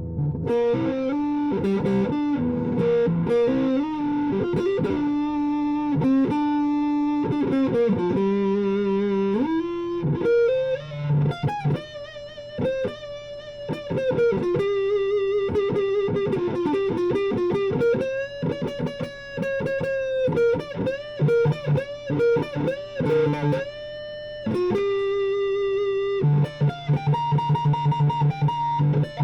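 Gibson Les Paul Tribute electric guitar on its neck pickup with the tone control turned all the way down and the volume all the way up, played through an Orange Crush 12 amplifier. Mostly single-note melodic lines, with string bends and vibrato on held notes.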